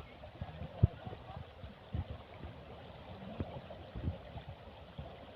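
River water flowing as a steady hiss, with a few irregular dull low thumps, the loudest about a second in.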